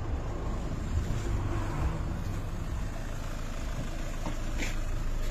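Car engine idling close by, a steady low rumble, with a brief click near the end.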